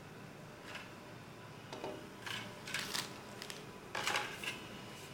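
Packaging being handled: a scattering of short rustles and clicks, about five in the few seconds, the longest about four seconds in.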